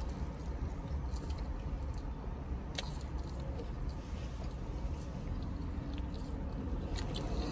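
A person chewing a mouthful of burger close to the microphone, over a steady low background rumble, with a sharp click at about three seconds and again near seven seconds.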